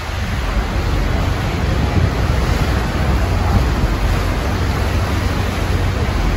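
Horseshoe Falls at Niagara pouring steadily, heard as a loud, even rushing of falling and churning water, with wind buffeting the microphone.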